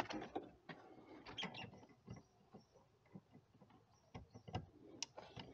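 Scattered light metallic clicks and knocks of a ratchet, extension and Torx T25 socket being fitted and worked onto the small bolts of a car's AC expansion valve. The clicks come at irregular intervals, with a few sharper knocks about four and five seconds in.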